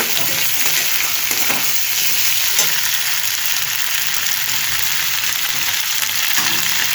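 Chopped tomato, red chillies and garlic sizzling steadily in hot oil in a pan while the chutney for momo cooks.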